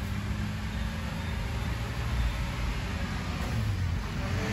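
Maruti Suzuki Alto 800's three-cylinder petrol engine idling steadily, heard from inside the cabin, while its newly fitted sequential CNG kit is being calibrated from a laptop.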